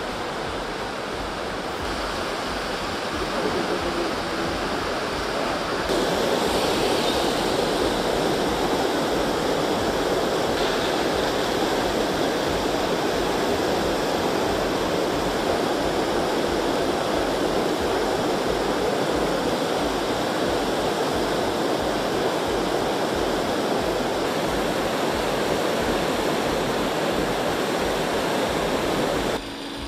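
Fast-flowing muddy floodwater rushing along a street, a steady sound of running water that grows louder about six seconds in.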